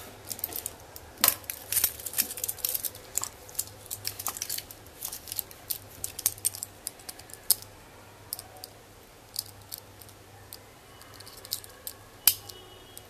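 Seiko 5's stainless steel bracelet clinking and clicking as it is handled and put on the wrist: many quick metal clicks, thick at first, then sparser. A louder snap near the end as the fold-over clasp is pressed shut.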